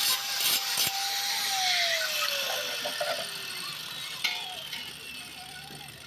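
Angle grinder running at full speed, then switched off about a second and a half in: its whine falls steadily in pitch as the disc spins down. A sharp clack around four seconds in, the grinder being set down on concrete.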